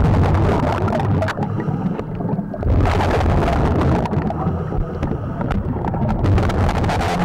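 Scuba regulator breathing heard through an underwater camera housing: a rumbling, crackling stream of exhaled bubbles that grows louder and hissier about a third of the way in.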